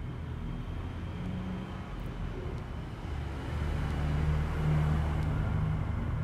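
Low rumbling background noise that swells a little from about three seconds in and eases near the end.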